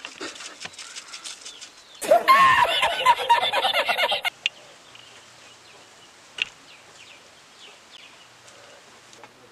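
A man laughing loudly in high-pitched, rapid gasps for about two seconds, the 'El Risitas' laughing meme clip. Before and after it, faint outdoor ambience with a few short chirps.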